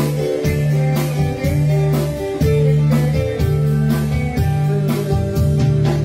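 Live band music: guitars, keyboard, bass and drums playing a number with a steady beat.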